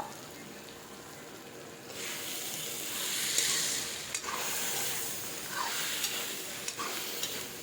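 Jackfruit and onion masala sizzling in a frying pan, a low hiss at first that grows louder about two seconds in. A spatula scrapes through the pan about four times near the end, stirring in the freshly added ginger-garlic-chilli paste.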